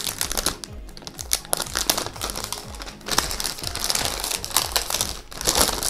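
Clear plastic wrap crinkling and crackling as it is peeled off a perfume box, louder in the second half.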